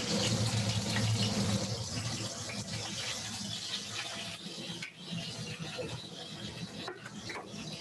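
Panko-crusted pork tenderloin pieces sizzling as they pan-fry in hot oil at medium heat: a steady hiss, loudest at the start and easing off a little.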